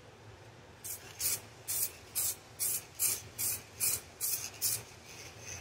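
Aerosol spray paint can hissing in about ten short bursts, roughly two a second, starting about a second in, as a coat of paint goes onto a clear plastic RC car body.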